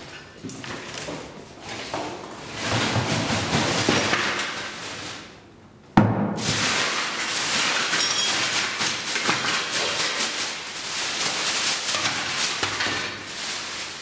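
Rubbish being tipped out of a tall bin onto the floor: a long rustling, scattering noise, broken by one sharp thump about six seconds in.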